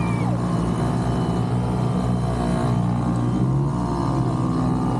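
Small engines of motorized bumper boats running in a steady drone.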